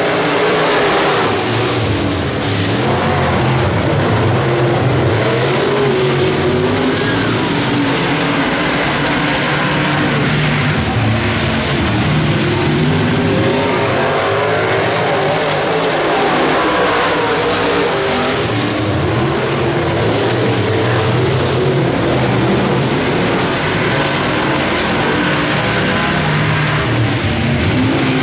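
A pack of dirt late model race cars racing together, their V8 engines loud and overlapping, the pitch rising and falling as they accelerate and lift through the turns.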